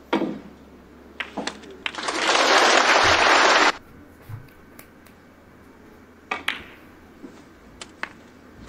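Snooker balls clicking together as shots are played, with a burst of audience applause of about two seconds starting around two seconds in. The applause is the loudest sound and cuts off suddenly, and further sharp ball clicks follow.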